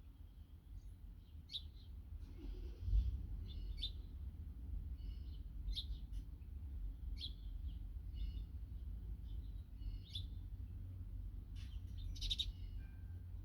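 Small birds chirping: short high calls every second or two, the loudest cluster near the end, over a steady low rumble.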